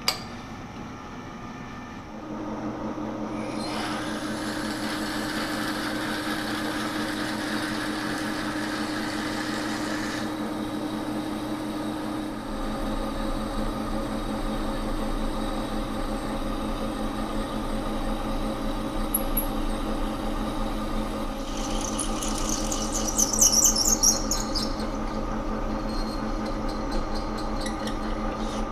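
Monarch engine lathe starting about two seconds in and running steadily while a freshly ground half-inch twist drill, fed from the tailstock, cuts a pilot hole into a cast iron handwheel. The drill squeals and chatters for a couple of seconds late on.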